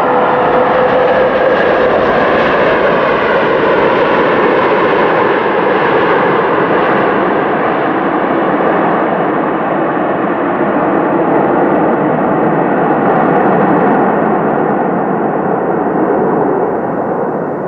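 Twin-engine widebody jet airliner on its landing roll, its engines giving a loud steady roar with a whine at the start, fading slowly as it rolls away.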